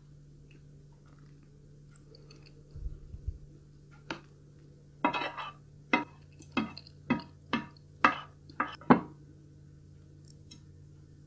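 A spoon scraping leftover curry sauce across a plate in a run of about eight quick strokes, roughly half a second apart. A couple of dull low thumps come about three seconds in.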